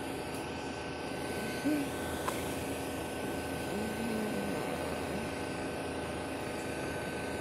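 Steady mechanical hum with a thin, high, constant whine. A small click comes about two seconds in, and a couple of brief faint voice sounds.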